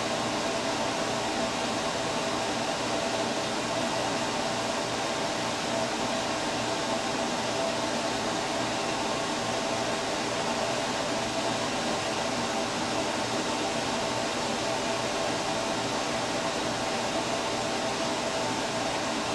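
Steady whirring noise of a fan running, with a few faint held tones and no change in level.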